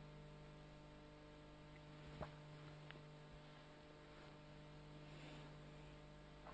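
Near silence: room tone with a steady low hum, and one faint click about two seconds in.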